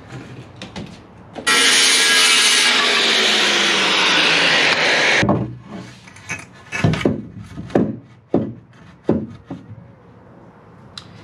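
Loud steady rushing noise for about four seconds, starting and stopping abruptly. Then a cedar strip knocks and scrapes several times against the fibreglassed wooden stringers and frames of a boat hull as it is laid into place.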